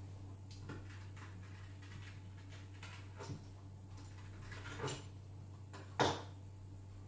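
Fluted pastry wheel rolling through pastry dough on a wooden board: faint soft taps and scrapes, with a sharper knock about six seconds in as the wheel is put down on the board. A steady low hum runs underneath.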